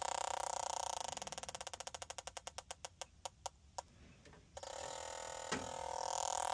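A steady machine hum breaks into a rapid ticking about a second in that slows and stops, then the hum returns with a single sharp click.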